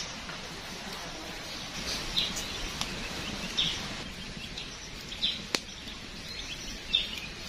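A forest bird calling four times, short high notes about a second and a half apart, over a steady background hiss of the forest. A single sharp crack sounds about five and a half seconds in.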